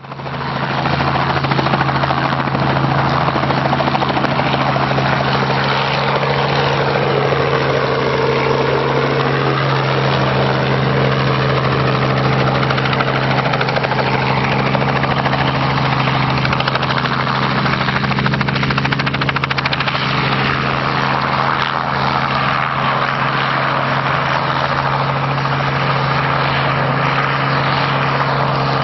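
Helicopter flying a low slalom course: a steady engine and rotor drone with a strong low hum, and a whooshing that swirls slowly up and down in pitch as the helicopter moves about near the ground.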